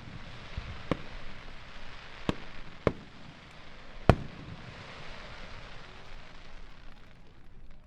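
Aerial firework shells bursting: four sharp booms, the loudest about four seconds in, over a continuous hiss that dies away near the end.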